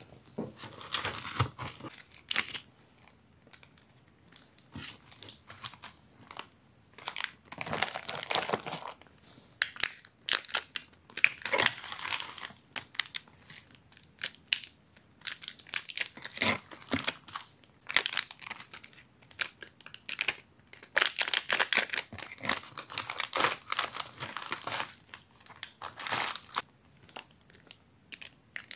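Plastic and paper packaging crinkling and rustling as a stationery order is packed by hand, in irregular bursts with short pauses between them.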